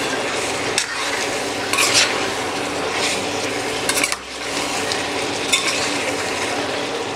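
Mutton pieces sizzling in oil in a stainless-steel kadai while a steel ladle stirs and scrapes them against the pan, with a few sharper scrapes along the way. The meat juices have nearly cooked off and the masala is being fried down.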